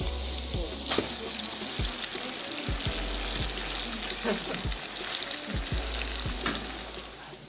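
Sausage, peppers and butter sizzling in a frying pan as cooked pasta is tipped in from a bowl, with scattered clicks and knocks, the sharpest about a second in. The sizzle dies down near the end.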